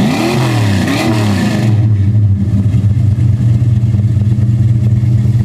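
1969 Plymouth Road Runner's 383 cubic-inch (6.4-litre) V8 at the exhaust, blipped twice near the start so the revs rise and fall, then settling into a steady idle.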